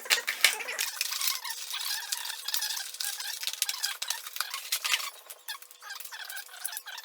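Packaging being handled: plastic and cardboard crinkling, crackling and rattling in quick irregular clicks throughout.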